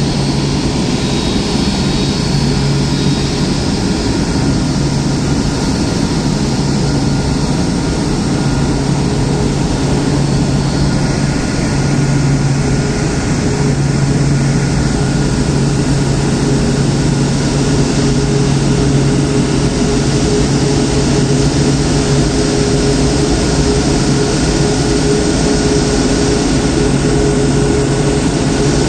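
Airbus A380's jet engines running steadily at taxi power: a constant rush with a low hum and a fainter, higher whine over it.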